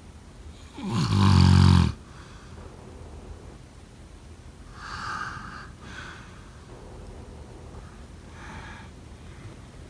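A person snoring: one loud snore about a second in, lasting about a second, then softer breaths around the middle and near the end.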